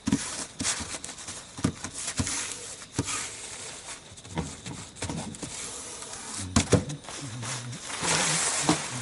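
Handling noises: rustling and crinkling with scattered knocks and clicks, a cluster of sharper knocks about two-thirds of the way in.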